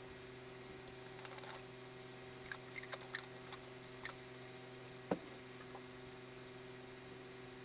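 Short scratches and clicks of a tool drawing in kinetic sand, scattered irregularly, with one sharper tap about five seconds in, over a steady low hum.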